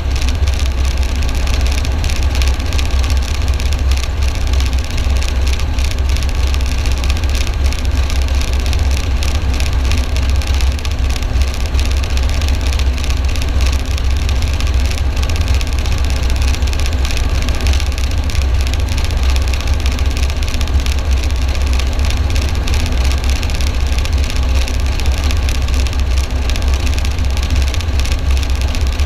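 Military helicopter running steadily close by: its rotor and engines make a loud, even drone with a rapid, regular beat.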